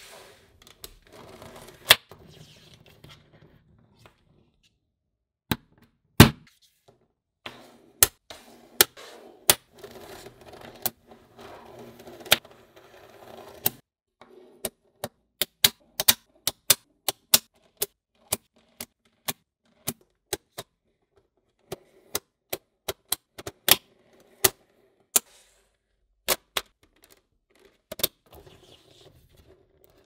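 Small magnetic balls clicking together one at a time as they snap into place: sharp clicks at irregular spacing, some in quick runs, with faint handling noise between them.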